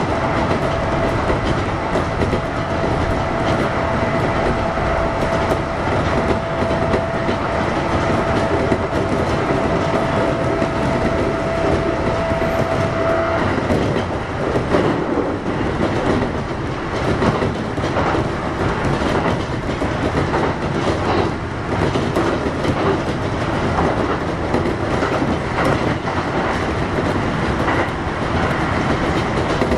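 Kintetsu 1021 series electric train running at speed, heard from inside: steady wheel-and-rail rumble with a thin steady whine from its Hitachi GTO-VVVF traction inverter that cuts off abruptly about 13 seconds in. After that, clicking from wheels over rail joints comes through the rumble.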